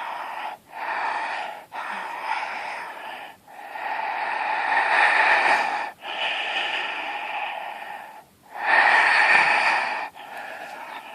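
A person breathing very deeply with the throat opened wide, so that each breath in and out sounds in the throat. About seven long breaths follow one another with only brief pauses between them. The loudest come about halfway through and again near the end.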